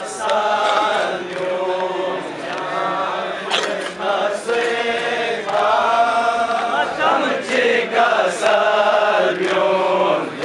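Men's voices chanting a Balti noha, a Shia mourning lament, in long phrases. Sharp hand slaps on chests (matam) land about once a second in places, keeping time with the chant.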